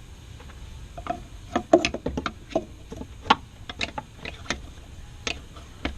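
Irregular metallic clicks and knocks of a dog bone engine mount, its bolt and hand tools being worked into place in a Subaru engine bay; about a dozen sharp clicks, starting about a second in and bunched in the middle.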